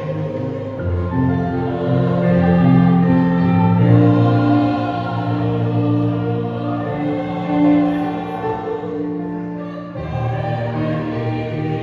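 Mixed choir of men's and women's voices singing a worship song in harmony, holding long chords, with a brief break about ten seconds in before the next phrase.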